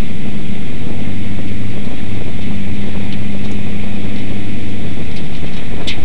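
Race car engine running loud and steady at low revs while the car rolls slowly at caution pace. It is heard close up through a hood-mounted camera, with some wind noise on the microphone.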